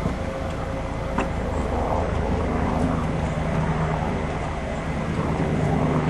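A steady low engine drone whose tone grows stronger near the end, with a single light click about a second in.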